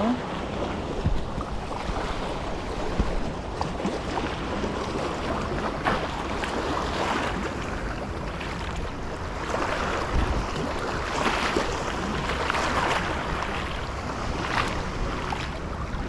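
Small sea waves lapping and washing over stones and sand at the shoreline, with wind buffeting the microphone as a low rumble.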